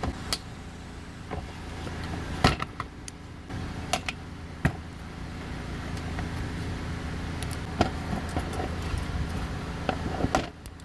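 A few scattered sharp clicks and knocks as plastic retaining clips are worked out of a car's underbody splash guard, over a steady low hum.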